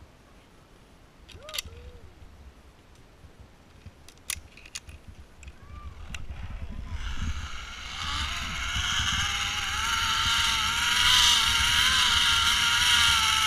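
Zipline trolley pulleys running along a steel cable: a few faint clicks, then from about seven seconds in a whirring whine with rushing wind that grows louder and stays loud as the ride speeds up.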